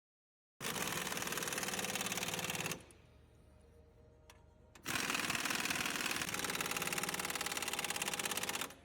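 Impact wrench running in two bursts with a rapid hammering rattle, a short one and then a longer one, as suspension fasteners are worked.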